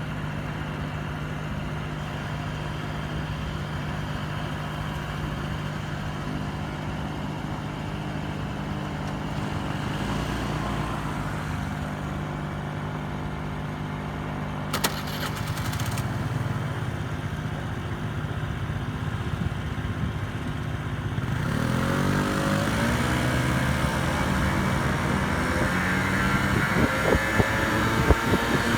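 Scooter engines idling steadily on the starting grid, then from about twenty seconds in revving up, their pitch rising as they pull away. A brief clatter of clicks comes about halfway through.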